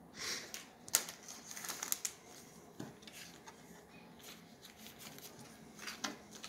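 Trading cards being handled and slid into the plastic pockets of a binder page: soft rustling and crinkling of the plastic sheet, with a few short clicks and taps.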